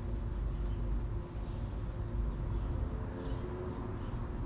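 Steady low outdoor background rumble with a faint steady hum, and faint short high chirps of small birds every second or so.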